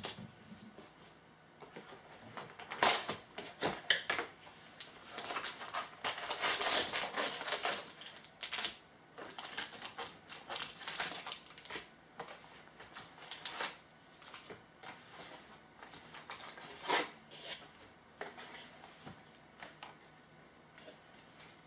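Irregular rustling, crinkling and clicking of packaging and trading cards being handled as a sealed box of trading cards is opened.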